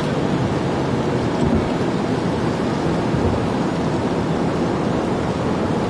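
Steady noise inside a vehicle's cab: an even low rumble with hiss, unchanging in level.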